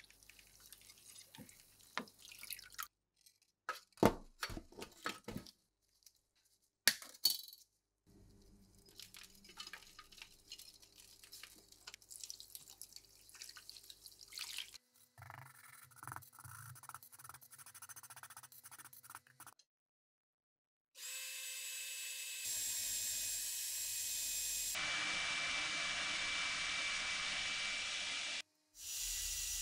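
Rusty steel parts fizzing and dripping in a rust-removal bath, and water splashing over them, for the first part. Then a cordless drill spins a wire brush wheel against rusty steel, a steady loud whine for the last several seconds with a brief break near the end.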